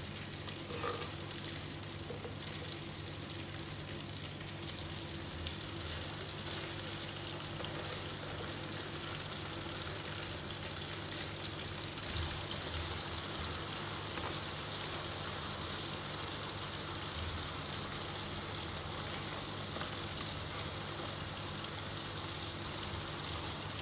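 Hot oil in a frying pan sizzling steadily as raw cut potato sticks are lowered into it with a metal skimmer, with a few light knocks here and there.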